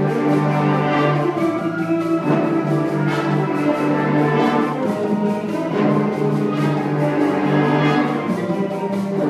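High school symphonic band of woodwinds, brass and percussion playing live, with full, brass-heavy chords held and changing about every second or so.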